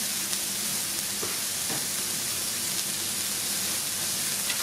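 Smashed beef burger patties sizzling on a hot flat-top griddle: a steady hiss with a few small pops of fat.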